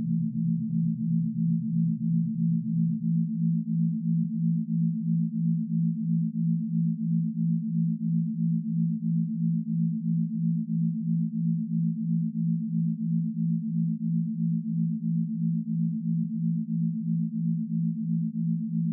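Layered low synthesized sine tones, a meditation 'pineal activation' frequency track, holding steady pitches and pulsing evenly a few times a second. The lowest of the tones drops out about three seconds in.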